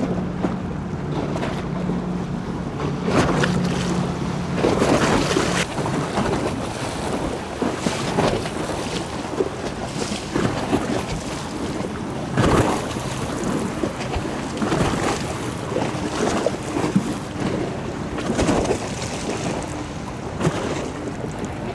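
Motorboat engines running as the boats pass at speed: a steady engine drone fades out about six seconds in, and a fainter one comes in after about sixteen seconds. Wind gusts buffet the microphone repeatedly and are the loudest sounds.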